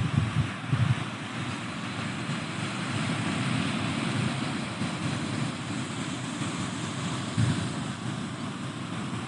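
Pacific Ocean surf washing steadily, swelling through the middle. Wind buffets the microphone in low rumbles near the start and again about seven seconds in.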